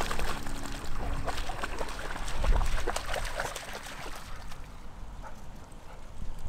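A dog splashing through a shallow river, water sloshing and slapping irregularly as it moves; the splashing thins out and fades after about four seconds.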